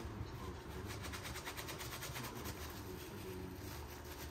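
Shop towel rubbing back and forth over a small plastic car-interior trim piece in quick, even strokes, over a low steady hum.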